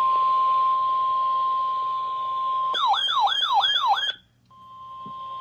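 NOAA Weather Radio single-tone warning alarm, a steady tone near 1 kHz, signalling a weather warning about to be read. About three seconds in it is broken by a rapid falling siren-like wail lasting about a second and a half. After a brief gap the steady tone resumes.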